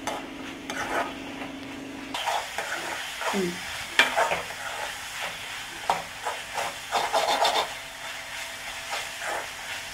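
A perforated steel spoon scraping and stirring a mashed bitter gourd mixture around a non-stick pan in repeated strokes, over a light sizzle as the mixture cooks down on a steady flame to drive off its water.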